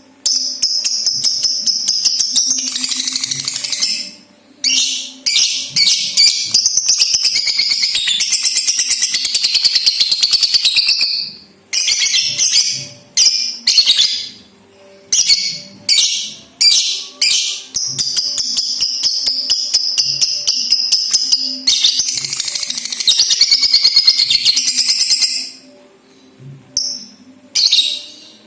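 Lovebird of the Balibu colour variety giving its 'ngekek': long bouts of fast, shrill, unbroken chattering trills, each several seconds long. Shorter sharp calls come between the bouts.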